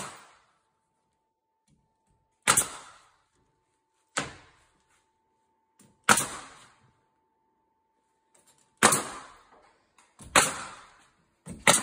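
Pneumatic 15-gauge finish nailer firing six times, a sharp shot every one to three seconds with a short hiss of air after each, driving nails through wooden door stop trim into the jamb.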